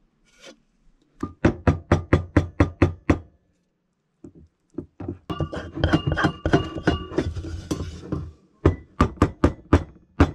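Spatula beating thick chocolate fudge in a glass bowl: quick, even knocks against the glass, about five or six a second, in runs of a couple of seconds, with a denser, busier stretch in the middle.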